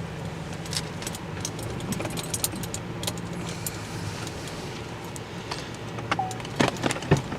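Steady car engine and road hum heard inside a vehicle, with light metallic jingling and clicking throughout, like keys or gear rattling. Near the end there are a few louder knocks.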